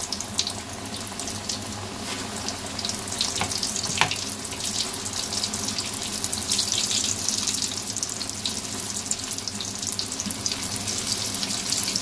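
Flour-battered chicken wings deep-frying in hot oil in a stainless steel wok: a steady sizzle with dense crackling, and one sharper pop about four seconds in.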